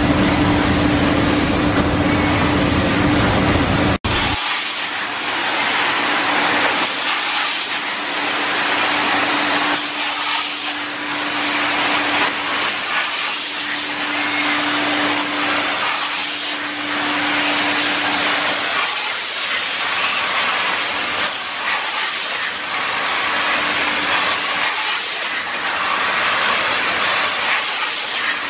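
Haas wafer baking line running: a steady, even machine noise with a faint steady hum. Near four seconds in the sound breaks off for an instant and returns with less low rumble.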